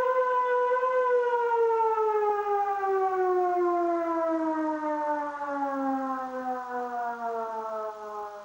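Civil defense siren winding down: its pitch holds for about a second, then falls steadily and the sound fades.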